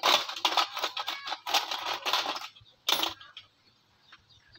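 Small metal tools and parts clattering and clinking in a plastic parts box as a hand rummages through it, with one sharper clack about three seconds in.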